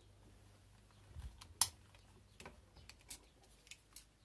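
Scattered light clicks and taps of a screwdriver working the scope-mount screws and the metal scope mounts being handled as a rifle scope is taken off an air rifle, the sharpest click about one and a half seconds in.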